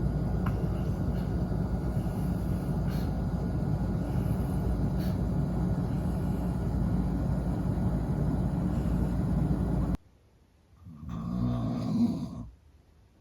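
Long-coat Chihuahua snoring: one snore swells and fades about eleven seconds in. Before it comes a steady low rumbling noise that cuts off abruptly into near silence at about ten seconds.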